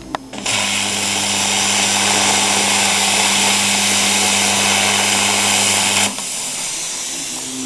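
Plasma cutter torch firing and cutting: a loud, steady hiss with a low electrical hum under it, starting abruptly about half a second in and cutting off about six seconds in.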